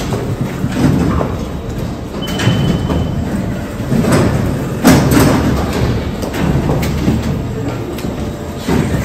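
Metro station ticket-gate ambience: a constant low rumble and shuffle of passengers with sharp clunks from the turnstiles, the loudest about five seconds in. A short high tone sounds about two seconds in.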